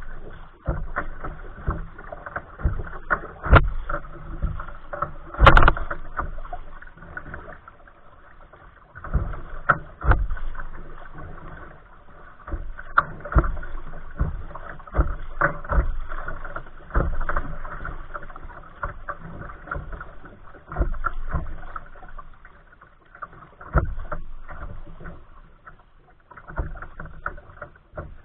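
Water splashing and slapping against a kayak's hull in choppy water, with paddle strokes: an irregular run of splashes about once a second, easing off briefly a few times.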